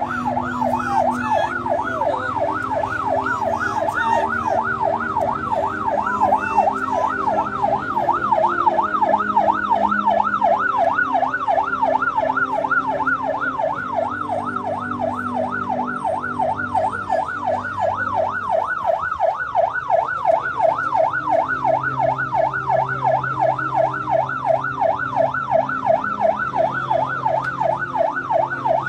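Vehicle siren sounding in a fast yelp, its pitch sweeping up and down over and over without a break.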